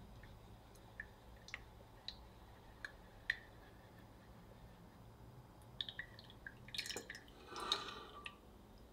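Faint, scattered tiny pops and ticks, about one every half second, from foam bursting on pink crepe batter resting in a glass jug. Near the end, a quick cluster of clicks and a short rustling scrape.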